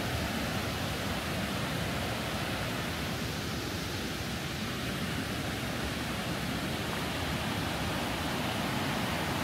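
A swollen river rushing through a rocky gorge: a steady, even rush of water.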